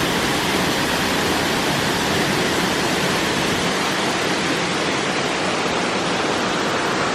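Waterfall rushing: a steady, dense hiss of falling water.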